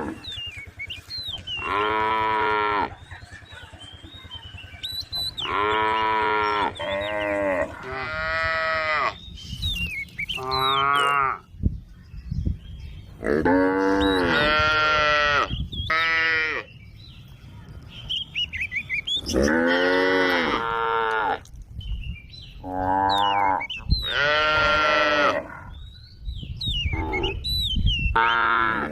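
Several cattle mooing again and again: about a dozen long calls of a second or so each, some overlapping, their pitch rising and falling within each call. Small birds chirp faintly between the calls.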